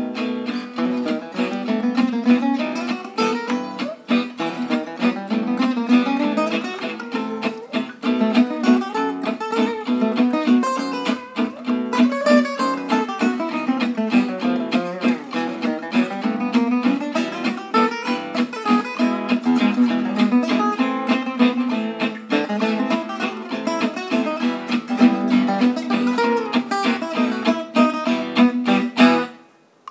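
Background music of rapidly plucked acoustic guitar over a steady low note, fading out just before the end.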